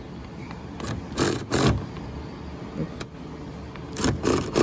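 A ratchet being worked on the door-handle set screw: several short scraping, rasping bursts and one sharp click, coming irregularly.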